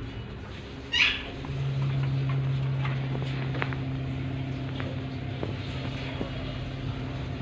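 Alexandrine parakeet giving one short, loud call about a second in, over a steady low hum, with a few faint clicks later.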